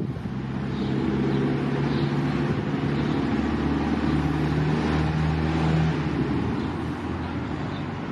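A motor engine running steadily, a low hum that fades out about six seconds in, over a steady rush of outdoor noise.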